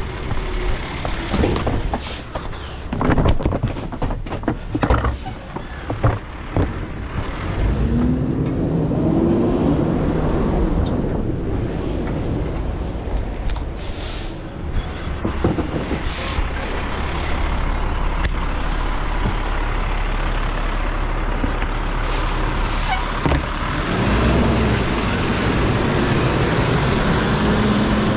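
Garbage truck at work, its engine running throughout. A run of knocks and bangs comes in the first several seconds, with sharp air-brake hisses about halfway through. The engine note rises and falls, about eight seconds in and again near the end.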